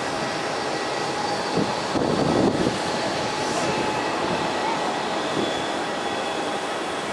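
Boeing 737-800's CFM56-7B turbofan engines running at taxi power: a steady whine over continuous rumbling noise, with a louder surge of rumble about two seconds in.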